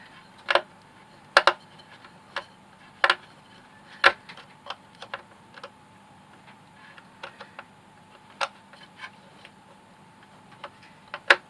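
Irregular sharp clicks and taps from small hand tools and the robot vacuum's plastic housing being handled during disassembly, a few louder knocks among quieter ticks.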